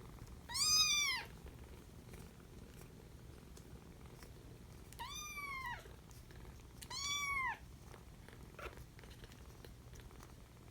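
Young kitten meowing three times, high-pitched calls that rise and fall in pitch, the first about half a second in and the other two close together midway.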